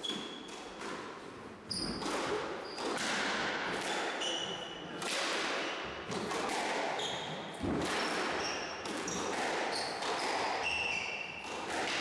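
Squash rally: the ball striking rackets and the court walls in sharp knocks, with short high squeaks of shoes on the wooden floor between shots.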